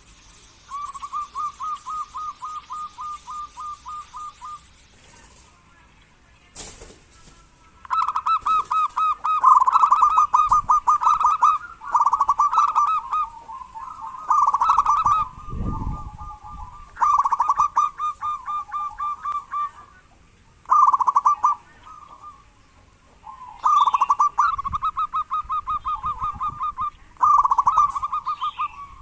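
Zebra dove (perkutut) calling in a run of rapid, pulsed rattling coos, each burst lasting one to four seconds with short breaks between. This is the fast 'kerot' call that keepers play to set other doves singing. A single sharp click comes about seven seconds in.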